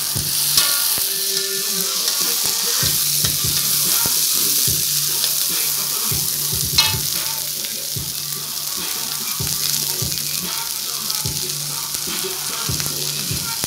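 Crickets sizzling as they fry in a metal wok, stirred and tossed with a metal spatula, with irregular scrapes and knocks of the spatula on the wok and one sharper knock about halfway through. A steady low hum runs underneath.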